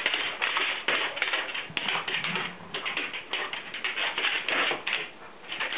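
Irish setter's claws clicking and scrabbling on a hardwood floor in quick, irregular taps as the dog spins and darts about.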